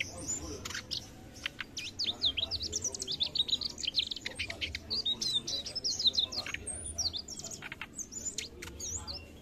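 Male Mugimaki flycatcher singing: a fast, continuous run of short, high chirping and twittering notes.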